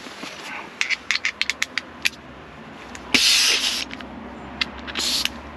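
A quick run of about eight small sharp clicks of hand-worked metal parts, then compressed air hissing in two short bursts, the first loud and nearly a second long, the second shorter, near the end.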